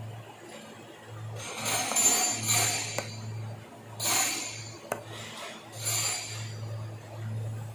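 Depalletizer's pneumatic system being test-run on a newly fitted air hose: several short hisses of compressed air exhausting as its valves and cylinders cycle, with two sharp clicks and a low hum underneath. The machine working means the hose repair holds.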